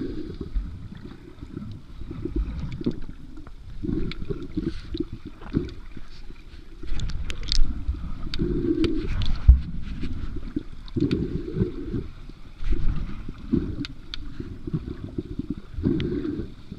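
Muffled water sloshing and gurgling, heard through a GoPro's waterproof housing, with surges every second or two and scattered faint clicks.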